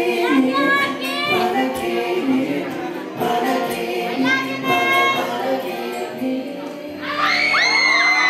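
A male vocal group sings an acoustic version of their song over a strummed acoustic guitar. About seven seconds in, as the song ends, the audience breaks into high-pitched screams and cheers.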